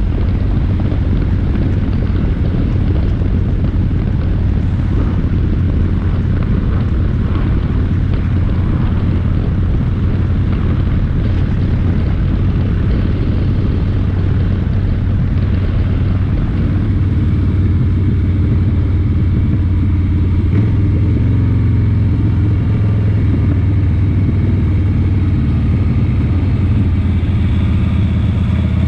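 An engine running steadily, a loud low hum; about two thirds of the way through its pitch settles and holds more evenly.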